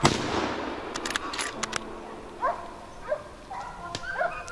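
A single gunshot from a hunting gun, its report dying away over about a second, followed by a few light clicks. Short yelps from a hunting dog come a few times later.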